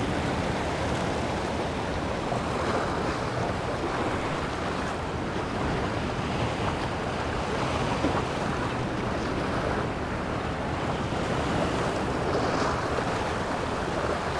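Small waves washing and splashing against jetty rocks, a steady surf, with wind rumbling on the microphone.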